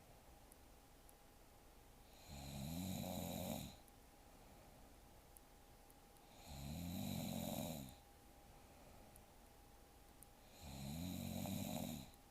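A young woman snoring in her sleep: three snores about four seconds apart, each lasting just over a second.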